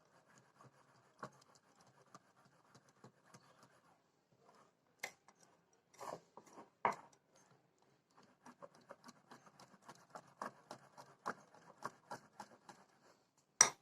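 Faint scraping and light ticking of a utensil stirring flour into cake batter in a bowl. There are two stretches of steady stirring, with a few sharper knocks against the bowl in between and one more near the end.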